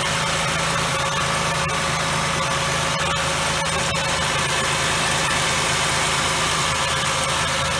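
2000 Ford Windstar's 3.8-litre V6 idling smoothly and steadily, with no hiss of an air leak: the vacuum leak at the upper intake plenum gaskets has been sealed.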